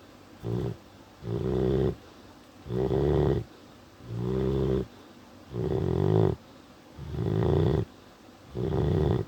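A dog snoring in its sleep: a steady rhythm of rough snores, about seven in all, one roughly every one and a half seconds with short quiet breaths between.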